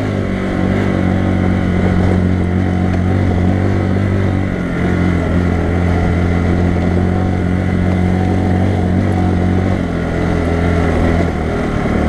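Bajaj Boxer 150's single-cylinder four-stroke engine running under way at low speed. Its note shifts in pitch a few times, about four and a half seconds in and again near ten seconds.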